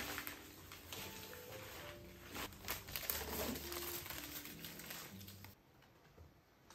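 Paper and cardboard packing crinkling and rustling, with quick crackles, as a puppy chews and tugs at it. The rustling stops abruptly about five and a half seconds in.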